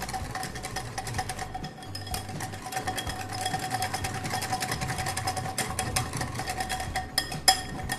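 A metal spoon stirring thick yogurt and ground spices in a glass bowl, scraping and clicking against the glass in quick irregular strokes, over a steady faint hum.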